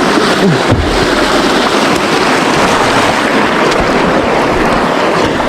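Loud, steady rush of flowing creek water.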